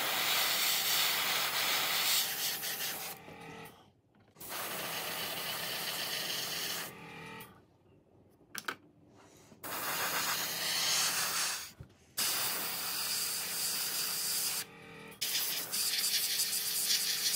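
Airbrush spraying weathering paint: a steady hiss of air and paint that stops abruptly and starts again about four times.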